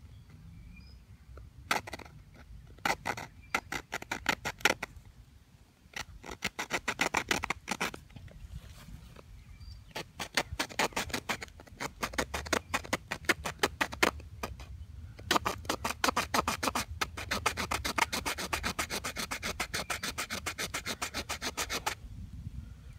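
Small saw blade of a Swiss Army-style pocketknife sawing into a wooden fork blank, cutting the slots between the tines: runs of quick back-and-forth strokes broken by short pauses, the longest run near the end.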